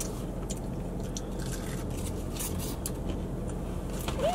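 Faint chewing and the rustle and clicks of fast-food packaging over a steady low hum inside a parked car. A short hummed "mm" rises and falls near the end.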